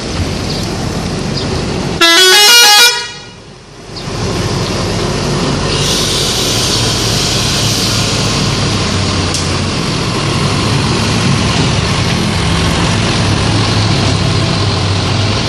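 A bus's telolet horn, a multi-tone musical air horn, blasts a short, very loud run of quick notes about two seconds in. Steady engine and road rumble follows, with a hiss joining about six seconds in.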